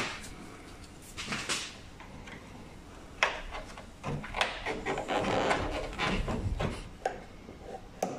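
A tailgate gas strut's plastic ball-socket end being worked by hand and pried with a small flat screwdriver to free it from its ball stud: scattered clicks and knocks, with a sharp click about three seconds in and a stretch of scraping and rustling in the middle.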